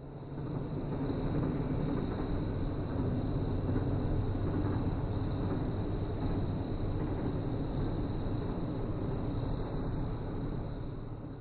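Steady low rumble of a train rolling by, swelling in the first second and fading near the end, with a constant high-pitched tone above it.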